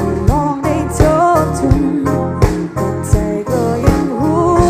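Background music: a melody with a wavering lead line over a steady beat.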